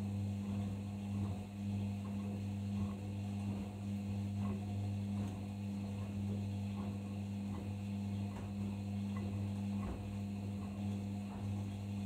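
Arçelik 5083 washing machine running its main wash on the delicates 30 °C programme: a steady motor hum as the drum turns the wet load, with faint irregular light ticks over it.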